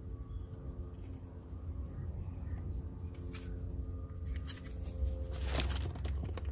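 A foil grease sachet being squeezed and handled, giving a few short crinkling crackles, the most of them a little over five seconds in, over a low steady rumble.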